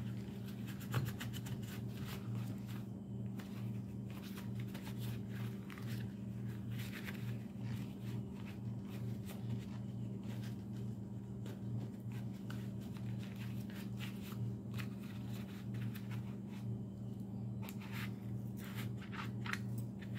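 Paper shop towel rubbing and scrunching against a pistol frame in gloved hands: a run of short scraping rubs, with a sharper knock about a second in, over a steady low hum.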